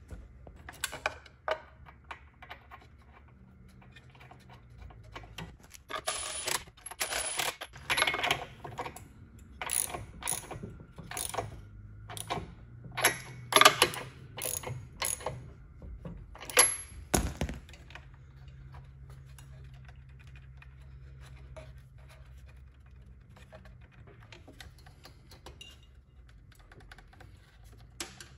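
Socket ratchet wrench clicking in several short bursts as a new spark plug is tightened into the cylinder head of an old two-stroke snowmobile engine; the clicking stops about two-thirds of the way through.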